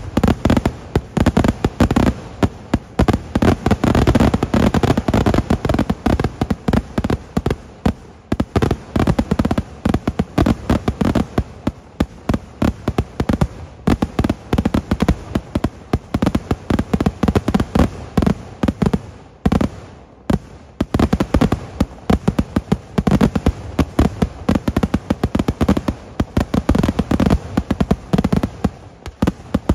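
A continuous barrage of ground-launched sky-shot fireworks: dense, rapid cracks and bangs, many per second, with a brief lull about twenty seconds in before the firing resumes.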